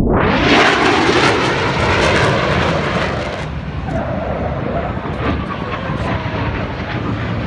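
Airplane flying past, a loud engine roar with a slowly falling pitch as it goes by. The sound cuts in suddenly at the start and cuts off just after the end.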